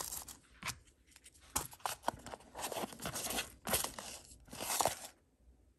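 Jewelry packaging being handled: paper crinkling and tearing in short, irregular bursts, with a few sharp clicks, stopping a little after five seconds in.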